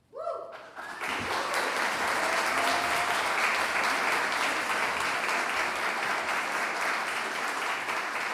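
Audience applauding after a choir's song: a few rising shouts right at the start, then steady clapping from about a second in.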